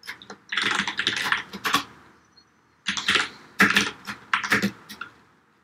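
Typing on a computer keyboard: two quick runs of keystrokes with a pause of about a second between them.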